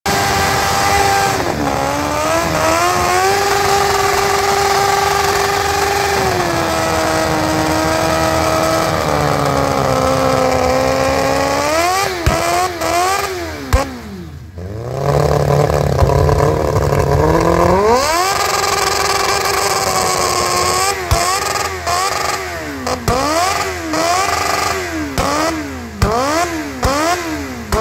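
Motorcycle engine held at high revs during a burnout, with the rear tyre spinning and hissing. Near the middle the revs drop sharply to a low rumble, then climb back up. In the last several seconds the engine is blipped up and down about once a second.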